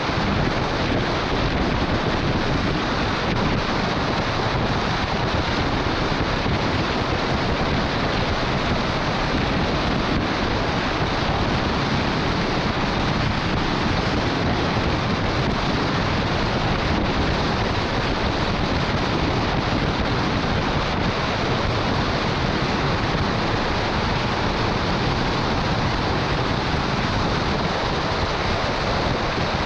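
Steady rushing wind noise on the microphone of a camera mounted on the roof of a truck driving at highway speed, mixed with the hiss of tyres on a wet road.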